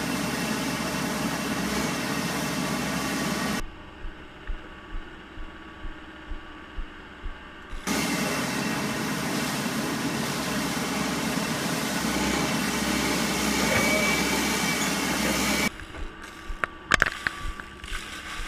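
Caterpillar 420E backhoe loader's diesel engine running hard with the hydraulics working, in two long loud stretches. Between them is a quieter spell with soft regular knocks about twice a second, and it drops quiet again near the end.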